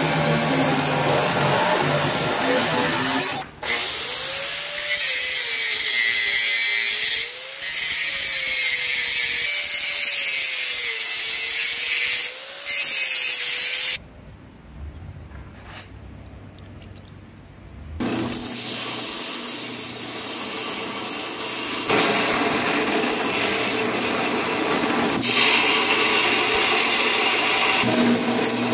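Abrasive chop saw cutting through a copper-and-steel cu mai billet. After a few seconds the cut gives way to a grinding stretch with a whine that wavers up and down. About halfway there is a quieter pause of about four seconds, then a belt grinder grinds the sides of the billet.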